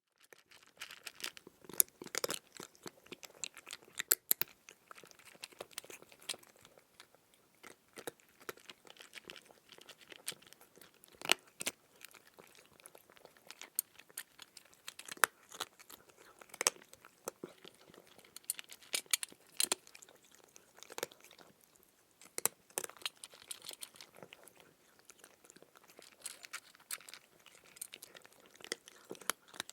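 A cat eating dry kibble: irregular clusters of sharp crunches as the pellets are bitten and chewed, with a few louder cracks every second or two.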